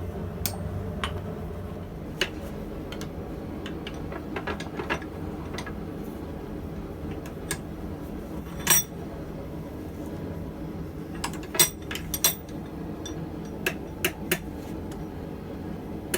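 Scattered, irregular metal clinks and hammer strikes on steel while forging a pair of blacksmith tongs, over a steady low hum.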